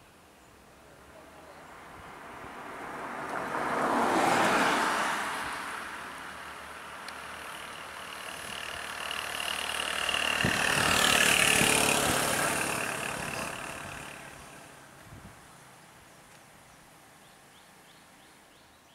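Two road vehicles drive past close by one after the other, each one's engine and tyre noise swelling to a peak and fading away. The first passes about four seconds in and the second about seven seconds later.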